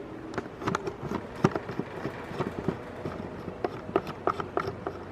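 Vintage Eskimo Deluxe three-speed box fan running on low speed with a faint, quiet steady hum. Irregular sharp clicks and knocks sound over it throughout.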